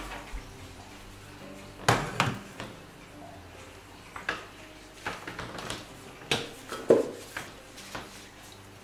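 Light knocks and clatters, roughly one a second, from tools being handled and set down on a kitchen benchtop, among them a plastic hot air gun being picked up and laid down. The gun is not switched on.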